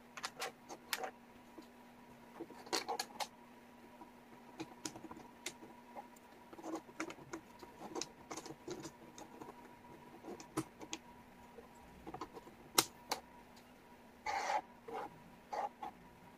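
Wooden jigsaw puzzle pieces clicking and tapping on a table as they are picked up and fitted, in irregular light clicks, with a short burst of pieces shuffled together a little after two-thirds of the way through. A faint steady electrical hum runs underneath.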